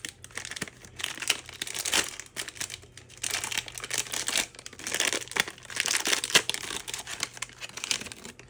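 Packaging crinkling and rustling as a parcel is handled and unwrapped, in stretches of a second or two with short pauses between them.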